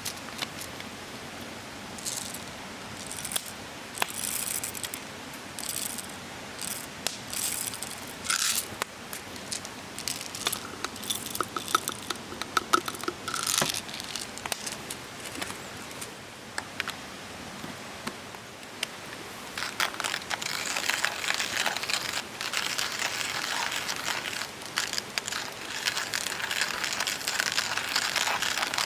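Campfire cooking: scattered clicks, rustles and clinks of gear and utensils being handled, then about two-thirds in a dense, steady crackling sets in.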